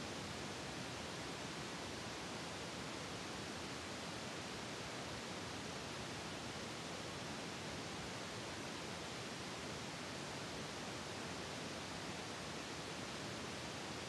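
Steady, even hiss like recording noise or static, with no distinct sounds: no commands, footfalls or rifle handling come through.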